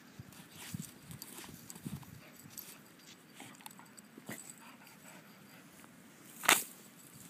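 Springer spaniel digging in sandy ground, its paws scraping and thudding in quick, irregular strokes. A single short, loud burst of noise comes about six and a half seconds in.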